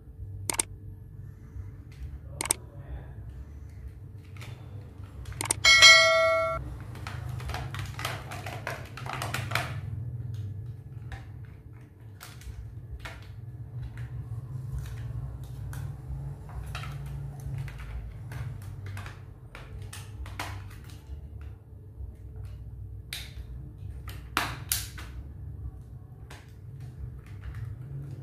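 Plastic clicks and knocks as the body and battery compartment of a Huina 1510 RC toy excavator are handled and pressed together. About six seconds in there is one short bell-like ring, the loudest sound, over a steady low hum.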